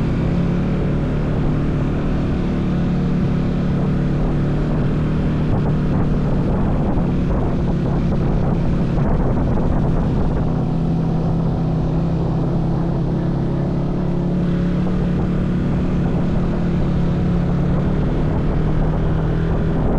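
A vehicle engine running at a steady speed, a constant low hum under a rushing noise, with no change in pace.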